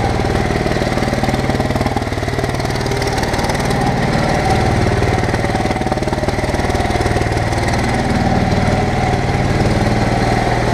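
Bobcat M371 skid steer's engine running steadily, a little fuller about halfway through, as the machine drives and slides about on an icy yard.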